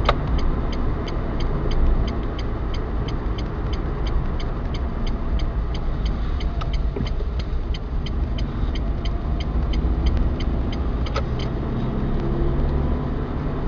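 Car turn-signal indicator ticking at about three ticks a second inside the cabin during a left turn, over low engine and tyre rumble; the ticking stops about eight seconds in.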